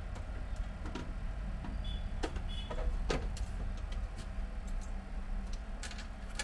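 Scattered clicks and knocks of plastic printer parts being handled and refitted inside an opened scanner unit, with a couple of brief squeaks, over a steady low hum.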